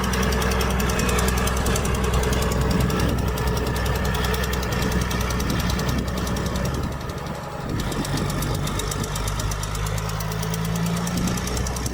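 Diesel engine of heavy earthmoving machinery running under load. It eases off briefly about seven seconds in, then picks up again with its note rising slightly.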